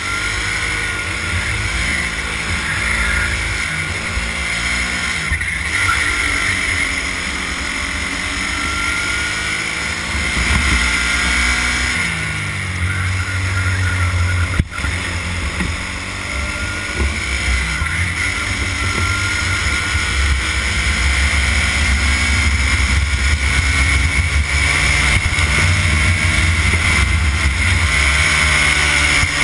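Racing kart engine running hard at speed, its pitch rising and falling as the kart accelerates out of and slows into corners.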